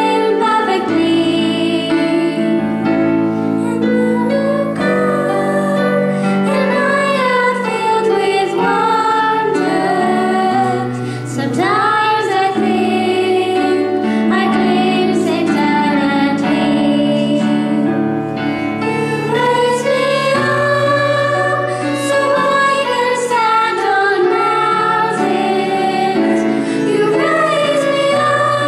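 Two girls sing a song into microphones over held accompaniment chords.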